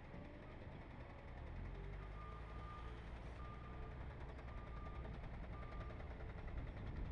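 An electronic beeper sounds four steady beeps of one pitch, each about half a second long and about a second apart, starting about two seconds in. A low street rumble runs underneath.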